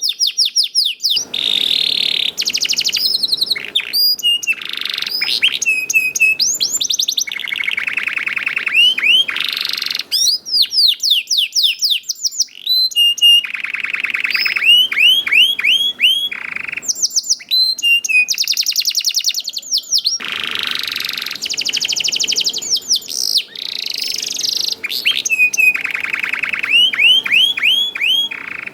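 Domestic canary singing a long, continuous song: rapid rolling trills alternate with fast runs of falling notes and repeated chirps, with barely a pause.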